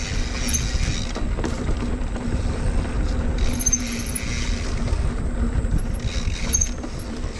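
Mountain bike rolling along a dirt trail: steady tyre and drivetrain noise over a low wind rumble, with a faint steady hum and a few short, very high chirps.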